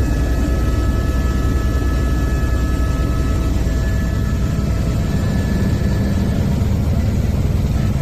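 Helicopter in flight heard from inside the cabin: a steady, loud low rumble of rotor and engine, with a thin steady whine above it.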